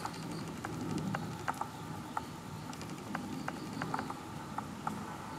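Water dripping irregularly, a few drops a second, from the eaves and rain chain onto wet stone and puddles after rain, over a steady low background noise.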